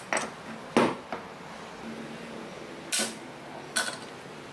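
Steel C-clamps and locking pliers clinking and knocking against each other and the wood as they are set and tightened on a glue-up of plywood pieces: a few sharp metallic clinks at uneven intervals.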